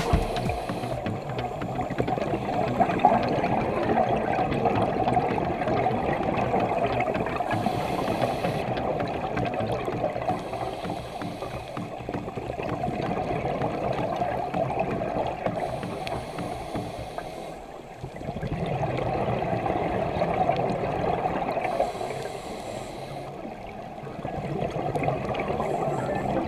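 Muffled rushing and gurgling water, a steady noise that swells and fades every few seconds.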